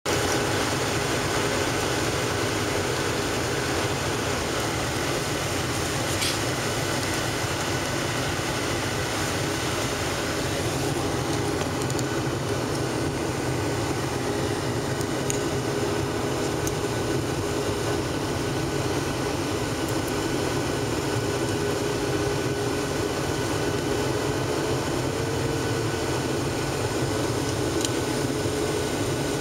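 Steady cabin roar inside a Boeing 737-700 jetliner in flight, descending on approach: engine and airflow noise at an even level, with a faint steady hum running through it.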